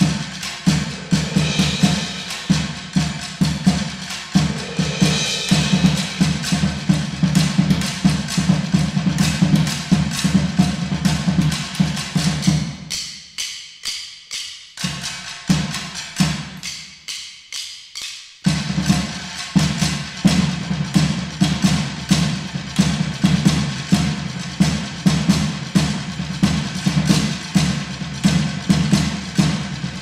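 Percussion ensemble playing a fast, even rhythm of drumsticks striking a long wooden plank together with a snare drum. About halfway through, the fuller low sound drops away for several seconds, leaving only light clicking, before the full rhythm returns.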